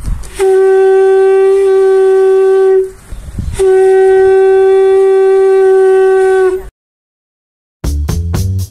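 Two long blasts on a blown horn, each held on one steady note for about two and a half to three seconds, the second sagging in pitch as it ends. After a short silence, a music track with a steady beat starts near the end.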